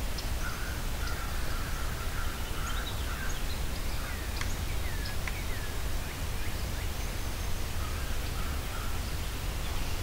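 Wild birds calling in woodland: a harsh, rough call repeated for a few seconds near the start and again briefly near the end, with scattered short chirps and falling whistles between, over a steady hiss and low rumble.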